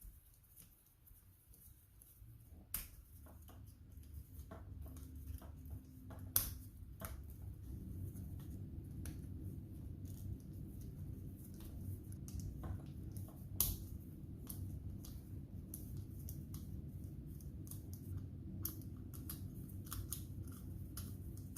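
Hand work on electrical wiring and terminals: scattered clicks, snips and small snaps of wire and tools being handled, over a low steady rumble that comes up a few seconds in.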